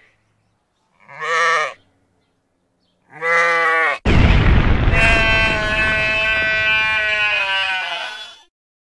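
Sheep bleating: three short bleats with wavering pitch, then a louder, longer sound that starts suddenly about four seconds in, holds a steady pitch for several seconds and quavers before it stops.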